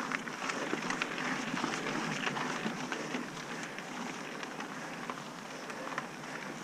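Mountain bike rolling fast over a gravel and rock trail: tyres crunching on loose stones, with frequent sharp clicks and rattles from the bike.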